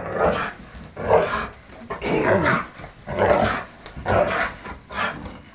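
Rhodesian Ridgeback growling and barking in rough play, in short bursts about once a second.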